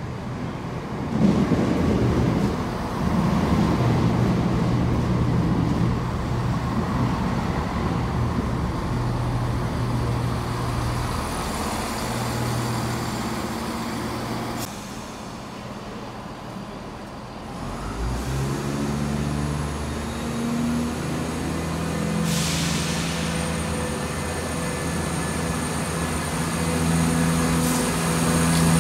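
CrossCountry Class 170 Turbostar diesel multiple unit running into the platform and braking to a stand, its underfloor diesel engines giving a steady low hum. About two-thirds of the way through, the engine note changes and rises, and a short hiss of air follows a few seconds later.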